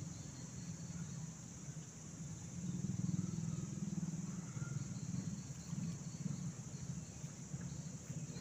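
Low running rumble of a motor engine, louder about three seconds in, over a steady high insect drone.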